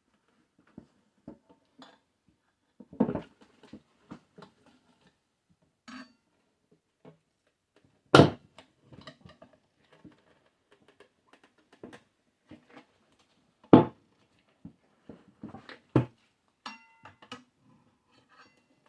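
Tire irons and hands knocking and clinking against a motorcycle wheel rim while the tire bead is levered over it: scattered small clicks with a few louder clanks, the loudest about eight and fourteen seconds in. A brief squeak comes near the end.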